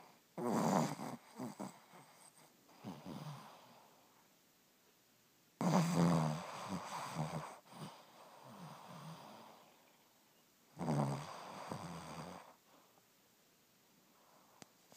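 Snoring: three loud snores about five seconds apart, each followed by a softer breath.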